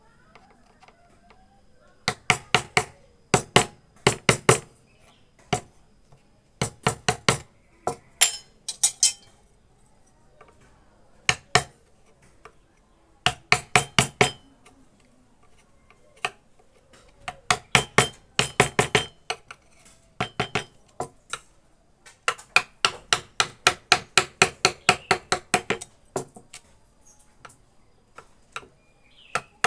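Mallet striking a carving chisel into wood in quick runs of sharp taps, up to about four or five a second, with short pauses between runs.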